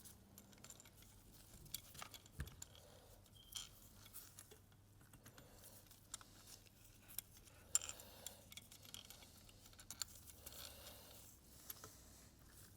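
Faint, scattered light metallic clicks and clinks of small hand tools and oil pump parts being handled, with a faint steady hum underneath.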